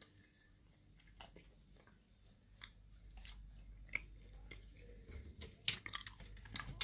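Faint chewing close to a phone's microphone, with irregular small clicks that come more often near the end.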